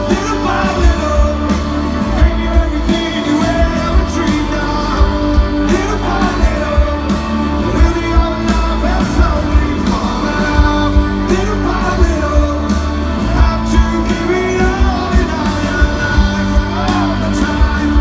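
Live rock band playing a song with sung vocals over a steady drum beat, heard loud from within the festival crowd.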